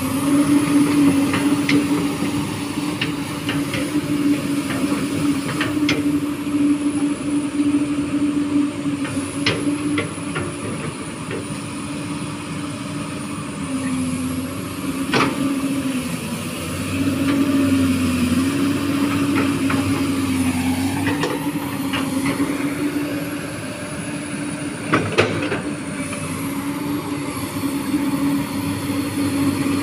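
Komatsu PC200 hydraulic excavator's diesel engine running steadily under working load as it digs, its pitch dipping a few times midway. Occasional sharp metal clanks from the bucket and boom linkage cut through, the loudest about 25 seconds in.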